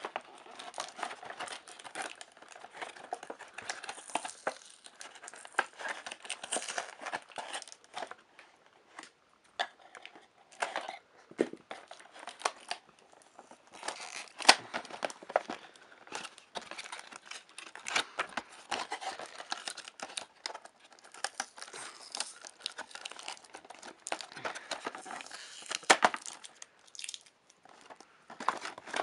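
A cardboard toy box and its packaging being opened by hand, with irregular tearing, rustling and crinkling and a couple of sharper cracks, one about halfway through and one near the end.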